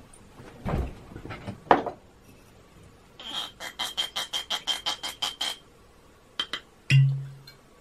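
A glass whisky bottle handled at the microphone: a thump and a few clicks, then a run of fast ticks at about six a second for two seconds. About seven seconds in comes a sharp pop with a brief low hum, the stopper coming out of the bottle.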